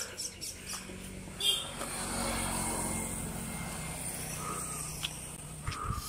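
A motor vehicle passing on the road: a low engine hum that swells about a second and a half in and then fades away. A short bird chirp comes as it begins, with a few light footsteps at first.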